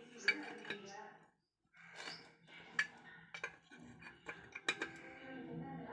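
Steel spanner clinking and tapping on the cylinder head nuts of a Kawasaki KB100 two-stroke engine as the head is fitted and tightened down: a string of sharp, light metallic clinks at irregular intervals.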